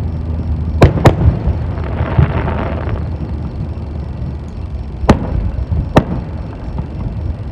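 Fireworks going off over the RC model plane: four sharp bangs, two close together about a second in and two more near the end, with a stretch of crackling hiss in between. A steady low drone from the plane's spinning propeller and motor runs underneath.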